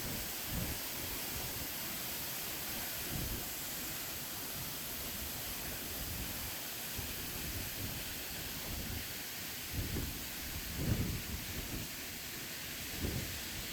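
Waterfall rushing steadily, its spray coming down like rain. A few low rumbling swells rise out of it in the second half.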